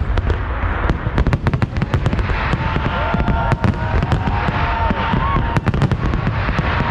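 Fireworks display heard at close range: a rapid, continuous barrage of sharp bangs and crackles over a steady low rumble.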